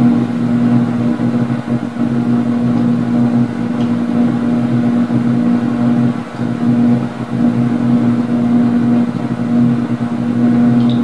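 Air fryer running as it preheats to 350: its fan and motor give a steady, even hum with a strong low tone.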